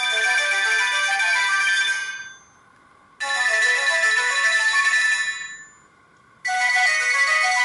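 Sony Ericsson K200i mobile phone ringtone: a short synthesized melody, played three times, each time fading out before a brief pause and starting again.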